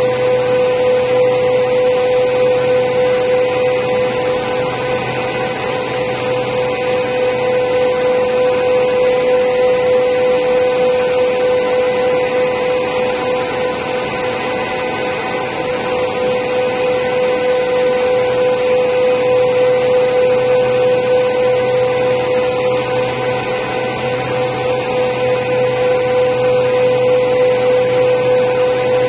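High-speed four-side planer moulder running: a steady high whine over constant machine noise, swelling and easing slightly.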